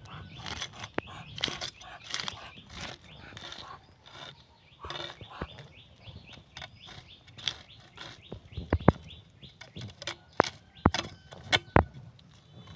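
Scales being scraped off a large carp on the curved blade of a boti: scratchy scraping strokes with sharp clicks and knocks, which come thicker in the second half.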